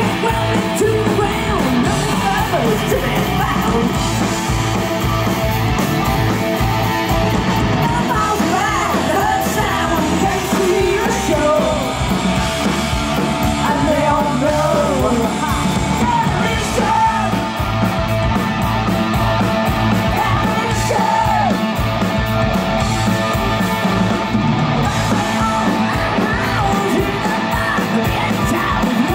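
Live hard rock band playing: electric guitars and drums with a woman singing lead vocals, heard from within the audience.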